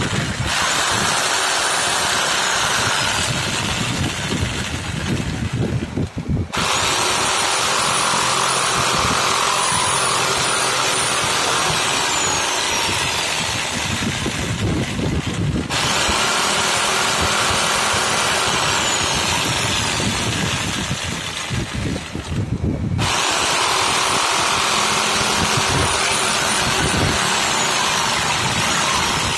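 Electric jigsaw running steadily while cutting wood, a dense saw-and-motor noise with a thin high whine that rises and then slides down. The sound changes abruptly about every seven to nine seconds.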